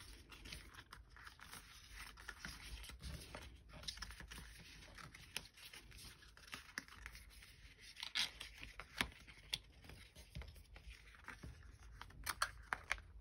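Cardstock being folded and creased by hand along its pre-scored lines: paper rubbing and scraping, with scattered short clicks and a few sharper snaps in the second half.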